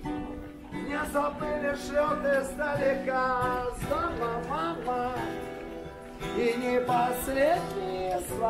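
A voice singing a melody to a strummed acoustic guitar.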